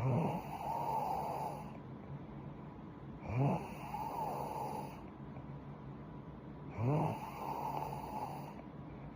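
A young woman snoring in her sleep: three snores in a steady rhythm about three and a half seconds apart, each opening with a brief rising tone.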